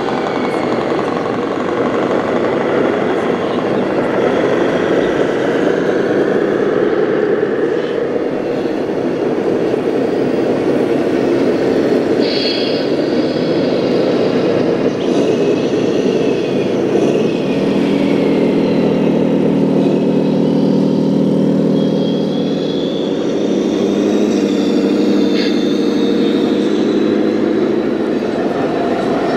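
Simulated diesel truck engine sounds from the sound modules of scale RC trucks, running steadily over the hum of a busy hall, with a low drone that sets in about halfway through.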